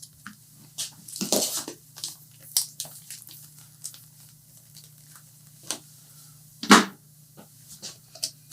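Scattered clicks, knocks and rustles of cables, connectors and tools being handled on a workbench, with a short rustle about a second in and the loudest knock near the end, over a steady low hum.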